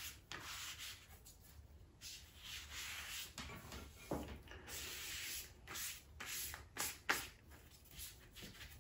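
Hand rubbing the wet bottom of a fired ceramic pot, cleaning off the sanding residue: faint, irregular scrubbing strokes with a few light clicks.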